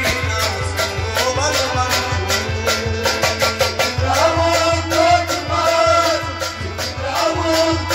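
Kashmiri folk music: a male voice singing over sustained harmonium chords, with clay hand drums (tumbaknari) beaten in a quick, steady rhythm.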